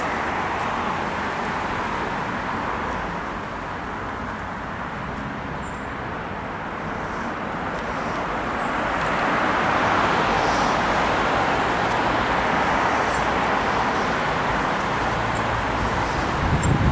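A steady rushing noise with no bell tones, easing a little and then swelling louder about halfway through, with a low thud at the very end.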